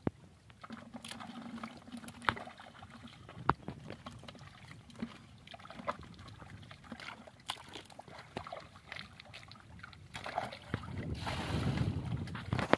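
Hands sloshing and squelching in shallow muddy water, with scattered small splashes and drips. From about ten seconds in, a louder rushing noise of wind on the microphone builds up.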